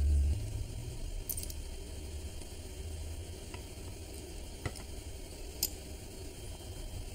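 A miniature ceramic spoon clicking lightly a few times against a tiny ceramic cup while stirring and handling it, over a steady low hum and hiss.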